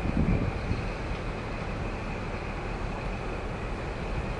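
Class 43 HST diesel power car running at standstill, a steady hum with a constant high whine over it. A brief louder low rumble comes in the first half-second.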